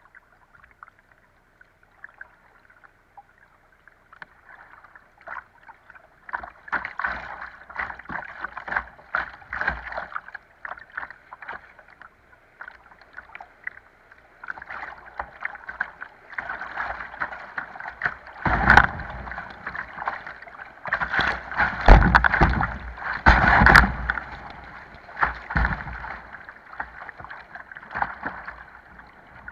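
Kayak running a shallow river riffle: rushing, splashing water with paddle strokes and water slapping against the bow and camera. Nearly quiet for the first few seconds, then building, with the loudest splashes about two-thirds of the way through.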